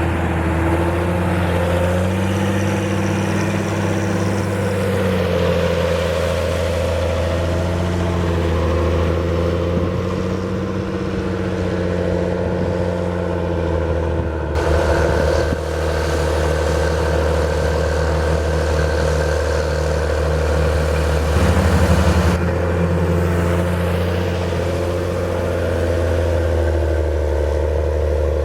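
John Deere 7720 tractor's six-cylinder diesel engine working steadily while pushing silage on the clamp, its pitch rising and falling as the revs change.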